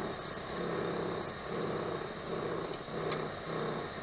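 Boeing 737 cockpit noise while taxiing: the engines at idle and the cockpit airflow make a steady hum with a regular pulsing, a little under two pulses a second. A single short click sounds about three seconds in.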